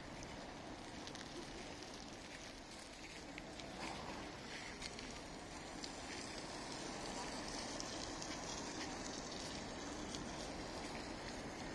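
Quiet outdoor street ambience: a steady hiss of background noise with scattered small clicks and crackles, a little louder from about four seconds in.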